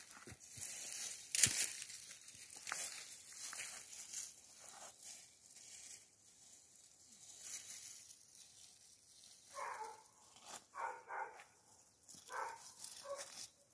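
Dry black soybean stalks rustling and crackling as they are gathered up by hand, with a sharp snap a second and a half in. In the second half a dog barks several times.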